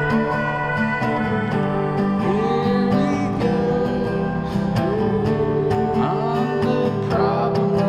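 Background music: a country-style song led by plucked acoustic guitar, with sliding notes.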